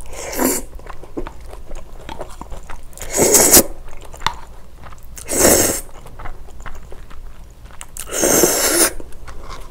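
Close-miked slurping of spicy bibim noodles (medium-thick wheat noodles) sucked in from a bowl, four loud slurps, the last the longest at about a second, with wet chewing and small mouth clicks between them.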